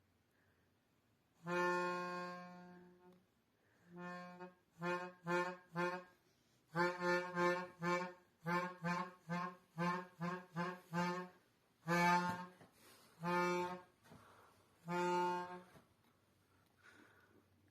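A toddler blowing a toy wind instrument, sounding one steady reedy note again and again: a long note, a few short toots, a quick run of short toots, then three longer notes.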